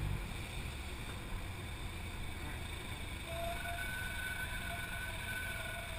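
A Cessna 172S's four-cylinder Lycoming engine heard from inside the cockpit during the landing rollout. Its note drops right at the start as the throttle comes back, then it idles under a steady low rumble. Faint, intermittent high-pitched tones come in during the second half.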